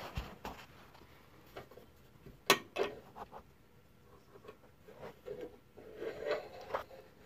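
Steel gate bolt latch worked by hand: scattered metal clicks and clacks, with one sharp clack about two and a half seconds in and a second soon after, then lighter ticks near the end.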